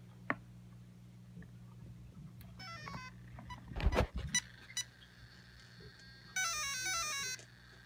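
Castle Creations Sidewinder 8th ESC playing its power-up tones through the brushless motor as the battery is connected. A short run of falling beeps comes a few seconds in, then a few handling knocks, then a louder stepped melody of beeps lasting about a second near the end. The tones signal that the ESC has powered up.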